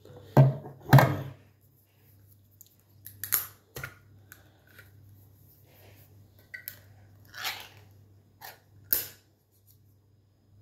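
Crusty bread being torn and handled, with two loud crunches about half a second and a second in, then scattered crackles and chewing.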